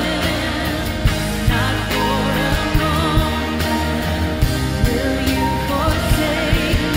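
Church worship band playing a song with drums, bass and sustained instrument notes, with a singer's voice carried over the top.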